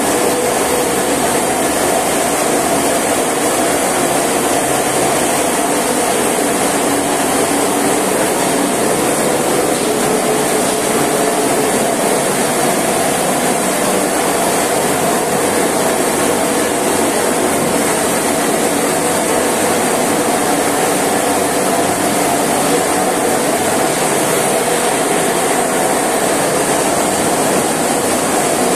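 Viscondinox stainless steel fruit pulp processing line running: steady, unbroken machine noise from the motor-driven elevator conveyor and pulping machines, with a continuous high hiss that fits the water spray washing the fruit on the conveyor.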